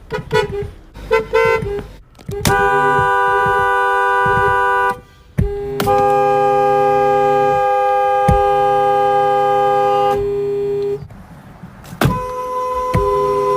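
Fiat Marea Weekend's car horn sounding a two-note chord: a few short toots, then long held blasts of a few seconds each, with brief breaks between them. The horn is loud.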